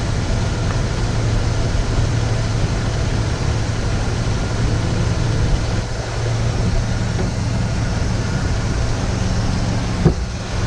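1981 Jeep CJ7's engine idling steadily, heard close up in the open engine bay. It is running smoothly on its first start of the season, sounding "pretty good".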